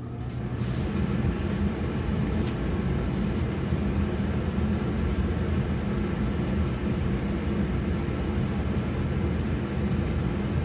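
Carrier gas furnace's circulating blower fan kicking on, spinning up over about a second to a steady rush of air with a low hum. A few faint clicks sound as it starts.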